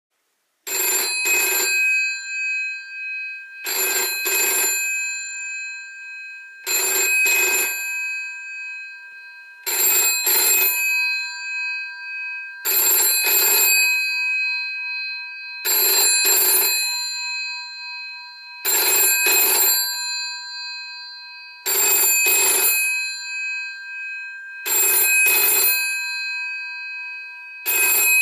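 Bell of a GPO 746 rotary dial telephone ringing with the British double ring, 'ring-ring' then a pause, repeating about every three seconds, ten times. The metal gongs keep sounding in the gaps between rings.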